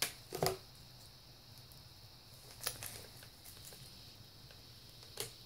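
Plastic bubble wrap being swiped across wet acrylic paint on a canvas: a few faint crinkles and sharp clicks, about four in all, with quiet between.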